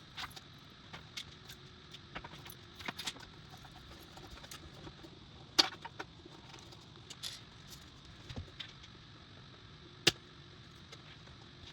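Light clicks and small metallic clatter of PC case parts and screws being handled during the build, with two sharper knocks, one about halfway through and one near the end.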